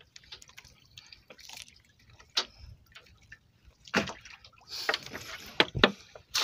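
Seawater dripping and sloshing with scattered knocks and sharp clicks from a wet fishing net being hauled into a small boat, busier and louder from about four seconds in.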